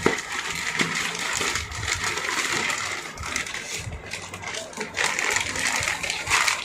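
Product packaging being handled and opened close to the microphone: continuous crinkling and rustling with many small clicks and knocks.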